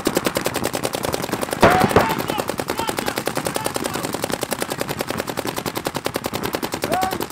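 Paintball markers firing in a rapid, even stream of shots, many a second, strings overlapping with no break. One louder crack comes about a second and a half in, with brief shouts among the shots.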